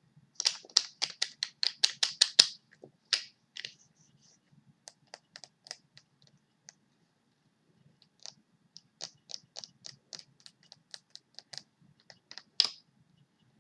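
Quick sharp tapping clicks, about five a second, in two runs with scattered single clicks between, like fingernails tapping on a small hard object.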